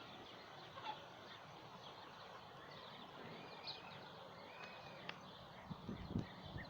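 Faint bird calls, many short chirps and warbling notes over a steady background hiss, with a few low thumps near the end.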